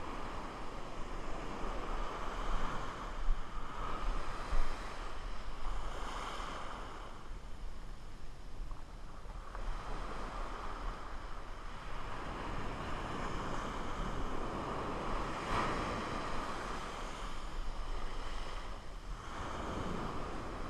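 Small ocean waves breaking and washing up a sand beach, the surf swelling and fading as each wave comes in.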